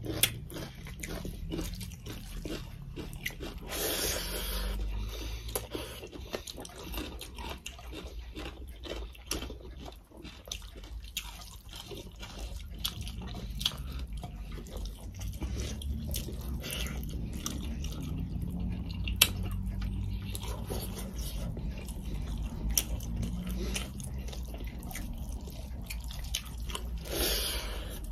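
Close-up eating sounds: chewing and wet mouth smacks, with fingers squishing and mixing rice and curry on the plates, many small clicks and one louder click about two-thirds of the way through.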